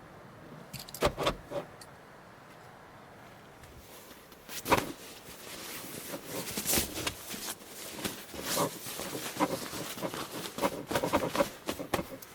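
Irregular handling noises: a few sharp clicks about a second in, then a busy run of knocks, clicks and rustling from about halfway.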